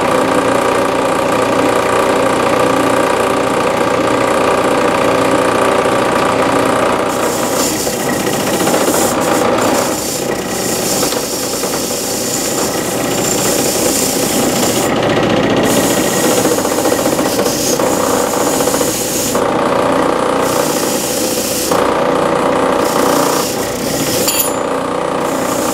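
Steady machine hum with several fixed pitches, joined from about seven seconds in by stretches of rasping, hissing tool work as the oil pump is bolted to the engine block.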